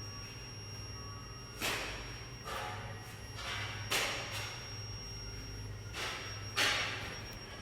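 Induction melting furnace running with a steady low hum and a constant high-pitched whine, while three loud sharp impacts and a few softer ones, about a second or two apart, ring out over it.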